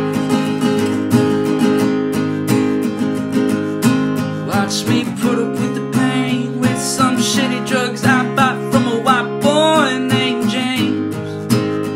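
Acoustic guitar strumming steady chords in an instrumental passage of a song. From about four and a half to ten and a half seconds in, a higher melodic line of sliding, wavering notes plays over it.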